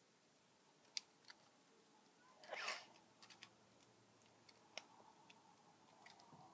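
Faint scattered clicks and taps of plastic Lego bricks being handled and pressed together, with a short soft breathy noise about two and a half seconds in.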